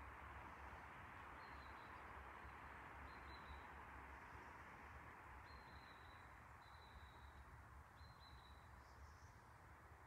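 Faint forest ambience: a steady hiss with a small bird giving short, thin, high calls, about five of them at irregular intervals.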